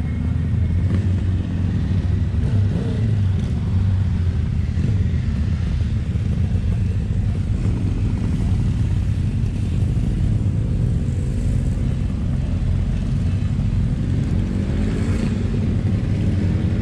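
Steady low rumble of wind buffeting the microphone, with faint motorcycle engine notes rising and falling twice, about three seconds in and near the end.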